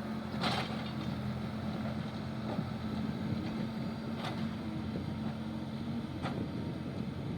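Diesel engine of heavy digging machinery running steadily, with a few sharp knocks. Its steady tone breaks up about six seconds in.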